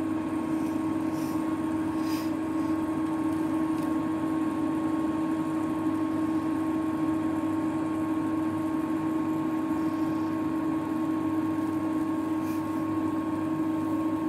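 Electric cooktop running under a pressure cooker: a steady hum from its cooling fan, with a strong low tone and a fainter higher one.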